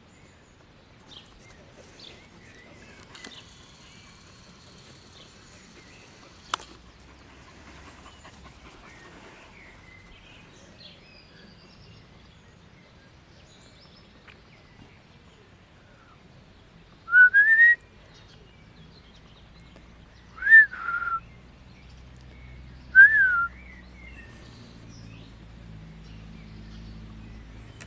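A person whistling three short notes a few seconds apart in the second half: the first rises, the second falls, and the third rises then falls.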